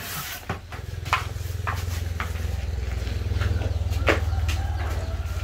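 A low, steady motor rumble that comes in about half a second in and keeps up, with several sharp knocks and taps over it, the loudest about four seconds in.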